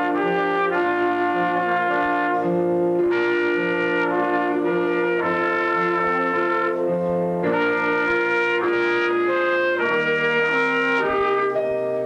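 Two trumpets playing a duet together, holding sustained notes in two parts that change every half second to a second, without a break.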